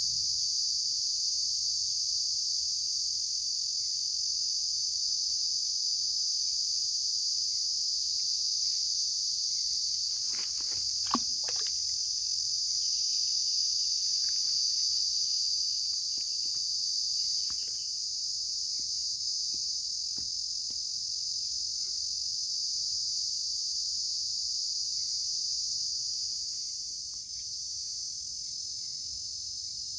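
Steady, high-pitched chorus of insects, easing slightly near the end. A short cluster of sharp clicks comes about eleven seconds in, with a few fainter ticks later.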